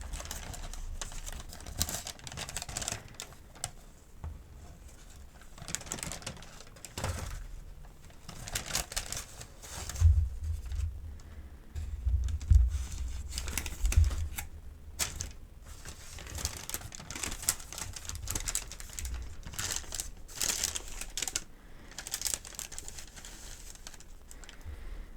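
Paper medication guide being handled and unfolded close to the microphone: irregular crinkles, rustles and crisp clicks, with a few louder soft knocks around the middle.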